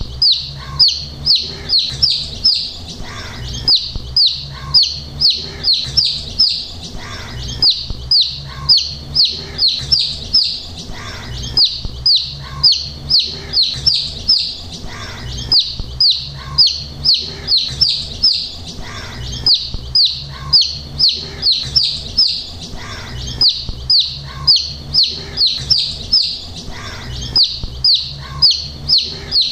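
Young chicks peeping: a constant stream of short, high peeps, each falling in pitch, coming in quick runs of several a second with brief gaps, over a faint low hum.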